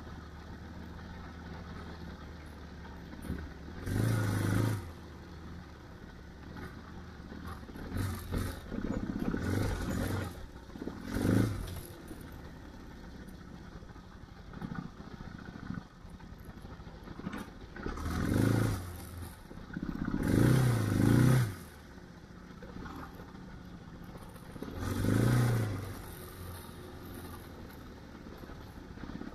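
Adventure motorcycle engine running at low speed on a wet gravel road, with the throttle opened in short bursts several times. Gravel clatters under the tyres.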